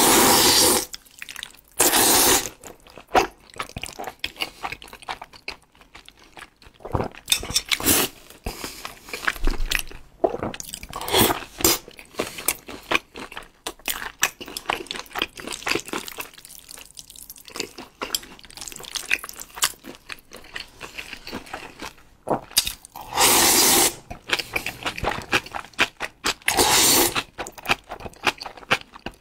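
Close-miked slurping of thick jajangmyeon (black-bean-sauce) noodles in several loud bursts of about a second, with wet chewing and smacking in between.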